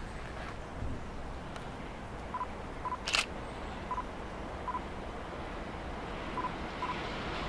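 Steady background noise with faint short beeps, mostly in pairs about half a second apart, and one brief sharp high screech about three seconds in.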